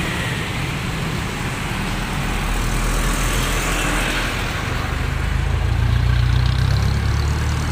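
Busy street traffic: motor scooters and cars passing. A nearby vehicle's engine adds a low hum that grows louder in the second half.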